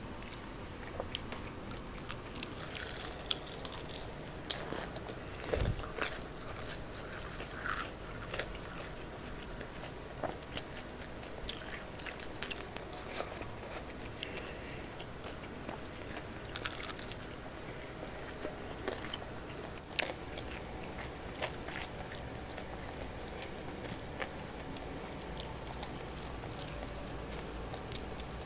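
Close-up eating sounds of crispy-skinned fried chicken: crunching bites and chewing, with irregular sharp crackles of the breaded skin throughout.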